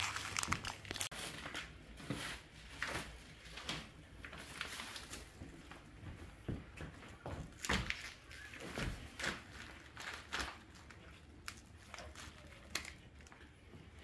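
Plastic packaging crinkling and rustling in irregular bursts as packs of beef are lifted out of chiller bags and set down, with a few sharp knocks among them.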